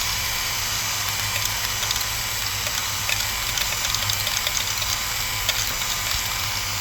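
Small motors of a 3D-printed model mine's conveyors and screen running with a steady hum. Over the hum is a dense patter of small clicks from birdseed and plastic beads rattling through the running screen.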